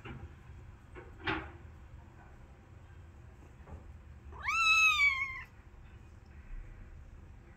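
Young calico kitten meowing once, a single high call of about a second that rises, holds and sags slightly at the end, about halfway through. A brief soft tap comes about a second in.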